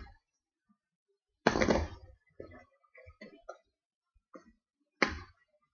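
A Tech Deck fingerboard clattering on a homemade ramp of CD cases covered in duct tape. There is a loud clack about a second and a half in, lighter taps and scrapes after it, and another loud clack near the end.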